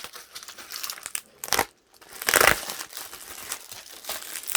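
Crinkly wrapping around an individually wrapped photocard being handled and pulled open by hand, in irregular rustling bursts, loudest about two and a half seconds in.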